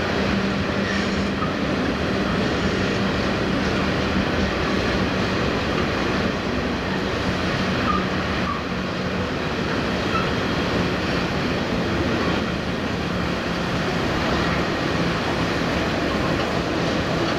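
Coal hopper wagons of a freight train rolling across a railway bridge: a steady rumble of wheels on rail, with a faint clickety-clack.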